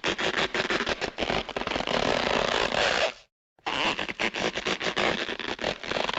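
Two Looney Tunes cartoon sound effects played back to back, each a dense, rapid, scratchy clatter lasting about three seconds, with a short silent gap between them about three seconds in.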